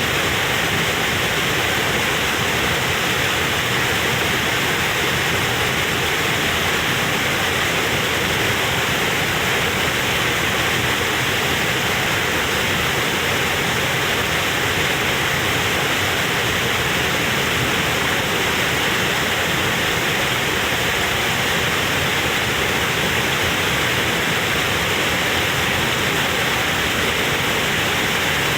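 Waterfall: water falling and splashing in a loud, steady, unbroken rush.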